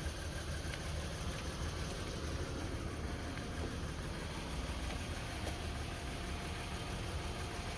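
Acura TL's V6 engine idling steadily with an even low rumble.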